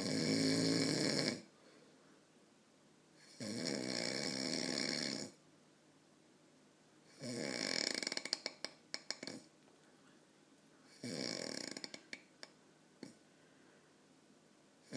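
A man snoring: four long snores, roughly every four seconds, the later ones trailing off into a run of short clicking sounds.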